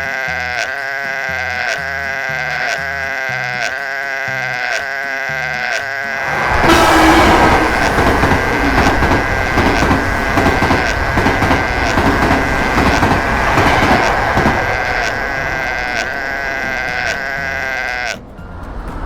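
Railway level crossing warning signal sounding in a steady repeating ding, about one and a half strokes a second. About six seconds in, a passing train joins it with a loud rushing rumble, and both cut off shortly before the end.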